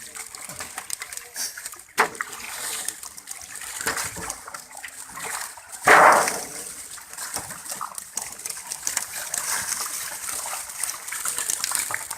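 Water splashing and sloshing in irregular bursts, with a sharp splash about two seconds in and one loud splash about six seconds in.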